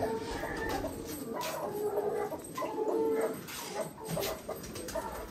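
Domestic pigeons cooing, low repeated coos.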